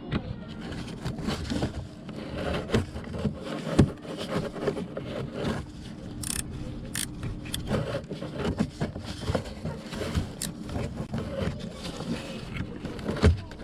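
Hand tools working on engine parts: irregular metal clinks, knocks and scraping, with a louder knock about four seconds in and another near the end.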